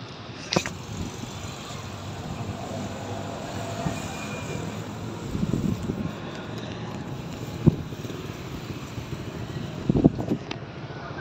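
Steady road-traffic noise from passing vehicles, with a few sharp knocks: one about half a second in, one near eight seconds and a cluster around ten seconds.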